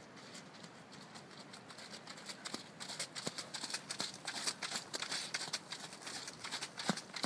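Hoofbeats of a ridden cob on the arena surface: a patter of soft thuds and crunches, growing louder and denser from about three seconds in as the horse comes close.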